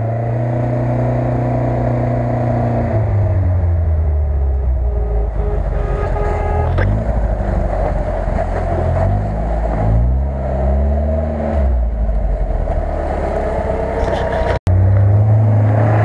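UAZ-469 off-roader's engine labouring in low gear, revving up and easing off again and again as it works along deep snowy ruts. The sound briefly cuts out near the end, then a steady engine drone carries on.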